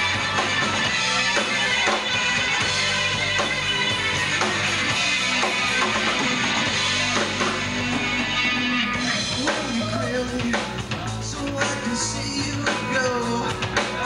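Live rock band playing: electric guitars, bass guitar and drum kit with a singer, heard loud from the crowd. Drum and cymbal hits and the vocal line stand out more in the second half.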